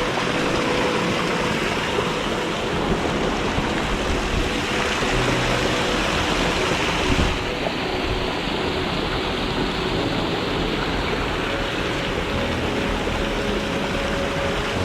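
Waterfall water rushing in a steady, even hiss. About seven seconds in, the sound suddenly turns duller.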